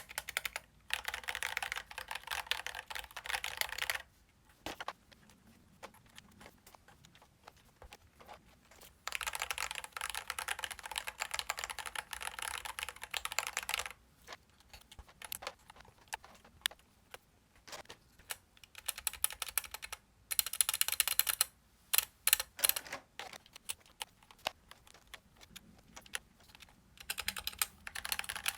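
Mechanical keyboard fitted with thick PBT MT3-profile keycaps being typed on. Fast runs of keystrokes come in several bursts, with slower scattered presses between them and a few louder single strokes near the middle.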